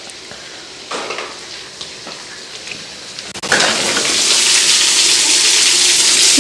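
Heavy rain pouring down, muffled at first. About three and a half seconds in it suddenly becomes a loud, steady hiss as a door to the outside opens onto the downpour.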